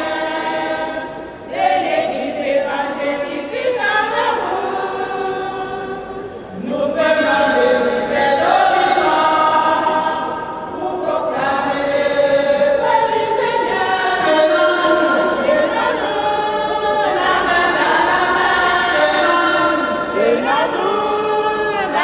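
Women's group singing a hymn in chorus, unaccompanied, with one woman leading on a microphone. The song runs in phrases with brief breaks between them.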